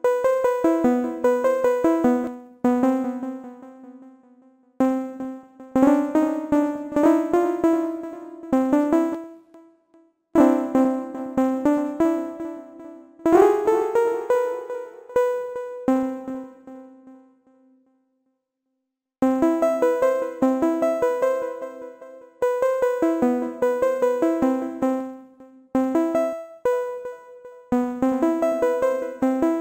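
Software synthesizer playing a looping arpeggio of short, plucky, piano-like notes that decay quickly. The loop stops and restarts several times, with a brief upward pitch glide about 13 seconds in and about two seconds of silence around 18 seconds in.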